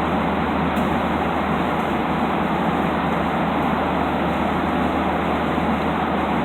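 Steady roar of an airliner cabin in flight: even engine and air noise with a low hum underneath.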